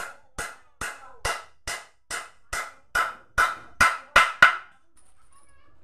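Hand hammer striking the corner joint of a wooden window frame, about a dozen steady blows two to three a second, the last few louder and closer together, then stopping.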